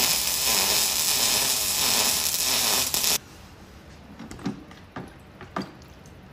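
Electric arc welder crackling steadily as a weld is run, stopping suddenly about three seconds in; a few light clicks and taps follow.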